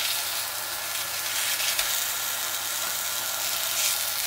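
Chicken burgers sizzling steadily in a nonstick pan on an induction hob, early in their frying while the patties are still pale.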